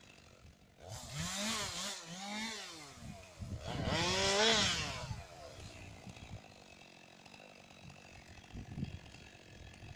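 Two-stroke chainsaw revved in three short bursts, its pitch rising and falling each time, the last burst the loudest; after that it drops back to a quiet low running.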